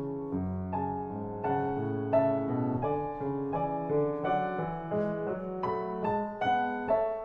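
Background piano music: a gentle piece of notes struck one after another in a steady flow, with a few brighter high notes in the second half.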